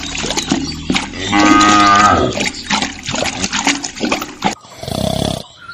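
A cow moos once, a single long call about a second in, over a busy clatter of small clicks and a low hum.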